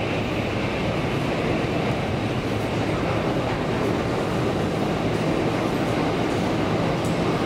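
Steady mechanical rumble with a faint low hum underneath, unchanging throughout.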